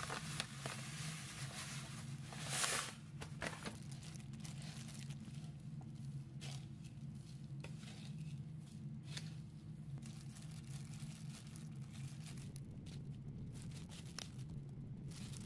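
Breadcrumbs pouring out of a crinkling plastic bag into a stainless steel tray, loudest about two and a half seconds in. After that, soft rustling and small clicks as a rice ball is rolled in the crumbs and more crumbs are spooned over it.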